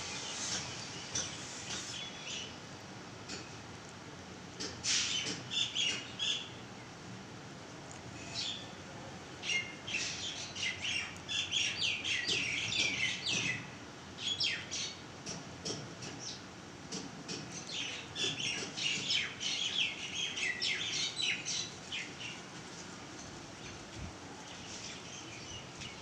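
Myna calling from a tree: groups of quick, sharp high notes, some falling in pitch, coming in bursts with quieter pauses between them.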